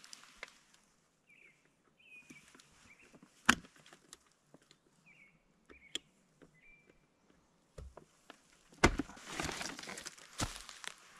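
Scattered sharp knocks and handling noise from building work on the greenhouse end wall, with faint short chirps in the quiet stretch. About nine seconds in, a loud knock starts a dense run of rustling and clattering.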